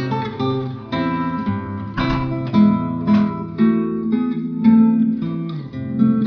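Acoustic guitar music: a run of picked notes, each ringing and fading before the next.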